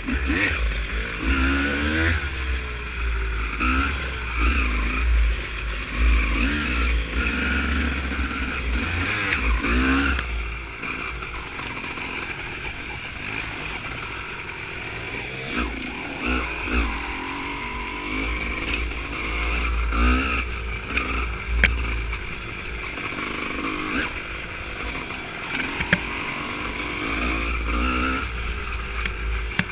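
Dirt bike engine revving up and down while riding off-road, its pitch rising and falling every second or two, over a heavy low rumble.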